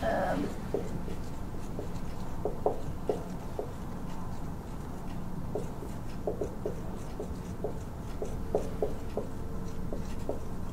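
Dry-erase marker squeaking on a whiteboard in many short strokes as words are written, over a steady low room hum.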